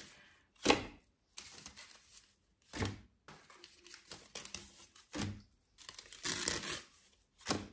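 Wooden bamboo-slat placemats clattering as they are handled, rolled and set down in a drawer: a few short rattling bursts, the sharpest about a second in, with a longer rustle near the end.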